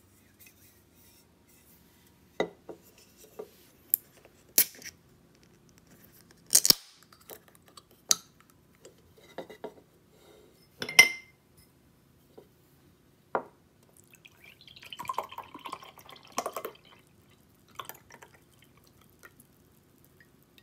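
A can of coffee being handled, opened and poured: a string of sharp clicks and knocks of the can on the table and glass, with the loudest knock about halfway through, the pull-tab cracked open, and later the coffee splashing into a glass tumbler.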